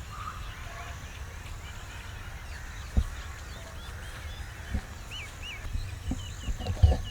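Small birds chirping again and again over a low steady rumble, with a few short thumps, the loudest about three seconds in.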